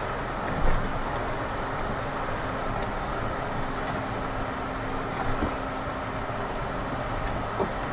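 Jeep Wrangler crawling along a rough off-road trail, heard from inside the cabin: a steady engine and drivetrain rumble with tyre noise. There is a sharp knock about a second in and a few lighter knocks and rattles later as it bumps over the ground.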